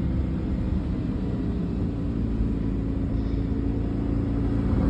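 Chevrolet Silverado pickup's engine running hard at steady high revs in two-wheel drive, the truck barely making headway through deep snow.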